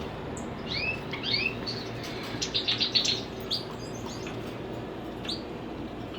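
Many small caged birds chirping and calling together in a room aviary, with short whistled notes and a quick run of chirps about halfway through.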